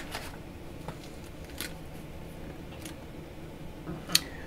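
Page of a hardcover picture book being turned, a brief papery rustle at the start, then a few faint handling rustles and a sharp click near the end over quiet room tone.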